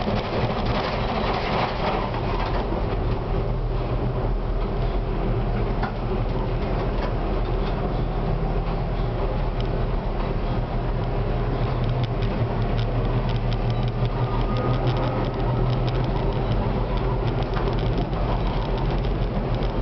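Konstal 105Na tram running along the track, heard from the driver's cab: a steady rumble of wheels on the rails with a low motor hum, and a faint rising whine in the second half as it gathers speed.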